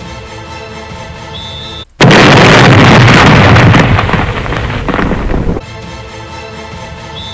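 Background music holding steady tones. About two seconds in it is cut off by a very loud explosion-like noise. The noise lasts about three and a half seconds, stops abruptly, and the music comes back.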